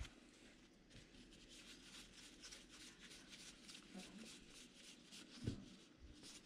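Faint rustling and sliding of baseball trading cards being handled and sorted, with a soft thump about five and a half seconds in.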